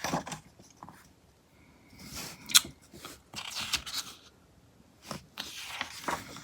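Pages of a heavy-paper glossy magazine being turned and handled, several short rustling swishes a second or two apart.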